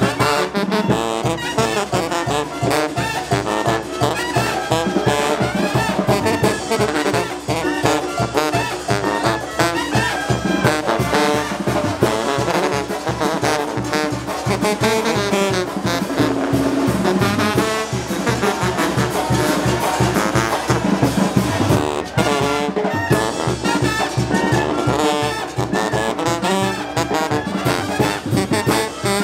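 Mexican brass banda playing: sousaphones pumping a steady bass beat under trumpets and clarinets.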